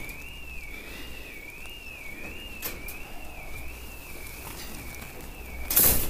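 Intruder alarm sounder on the building going off: a steady warbling electronic tone sweeping up and down about twice a second. Near the end a short, loud rustle of leaves and branches cuts in.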